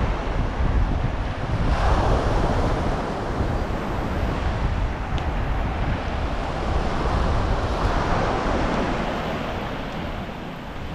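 Wind buffeting the microphone, a heavy uneven rumble over a rushing wash that swells twice.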